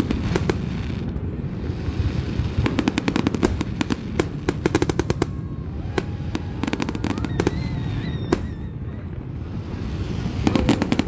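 Aerial fireworks display: shells bursting with rapid runs of sharp pops in several clusters over a continuous low rumble, and a single sharp bang about eight seconds in.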